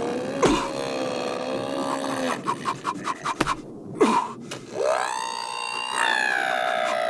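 A man making sound effects with his mouth: bursts of quick clicking, two thumps with falling swoops, then a rising tone that settles into a steady, held electronic-sounding whine.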